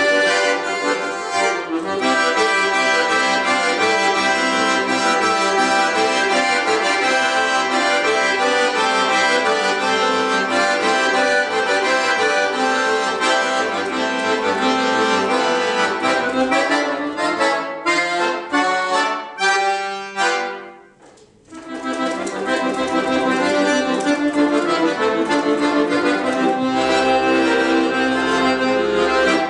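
Piano accordion playing a solo piece. About two-thirds of the way through, a run of short, separate chords leads into a brief pause, then the playing resumes.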